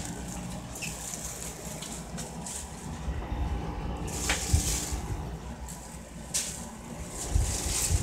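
Window air conditioner running with a steady hum and rushing air, with rustling and a few handling bumps over it.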